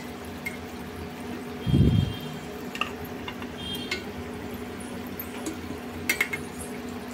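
Battered cauliflower pieces deep-frying in hot oil, a steady bubbling sizzle. A dull thump comes about two seconds in, and a few sharp clicks of the metal slotted ladle near the end.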